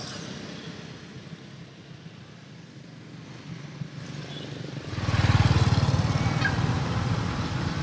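Road traffic: a motor vehicle running close by. It comes in suddenly about five seconds in as a loud low rumble over fainter, steady background traffic.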